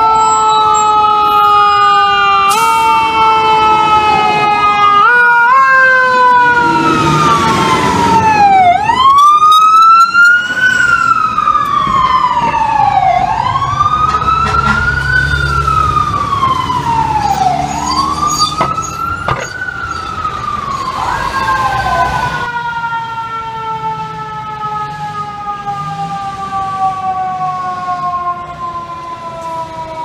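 FDNY emergency vehicle sirens, several at once. Wail sirens rise and fall every two or three seconds over the rumble of a heavy truck engine and are loudest about ten seconds in. After they stop abruptly, a single siren tone slowly winds down in pitch.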